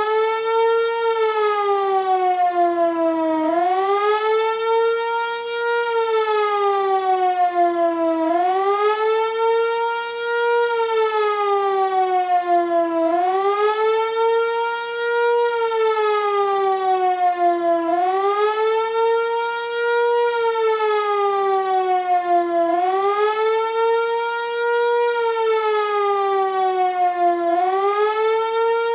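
Hörmann HLS 373 high-performance civil-defence siren, built 1984, sounding a loud howl that swells and fades: the pitch rises quickly, holds briefly, then falls slowly, about once every five seconds. This is the undulating public-warning signal of a German siren test.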